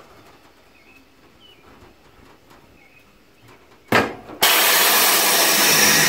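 Coats 1010 tire changer at work as a tire bead is worked onto a rim: a few quiet seconds with faint clicks, then a short loud burst about four seconds in, followed by a loud, steady noise.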